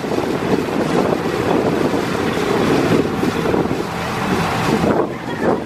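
Passenger ferry's engine running steadily under way, with wind buffeting the microphone.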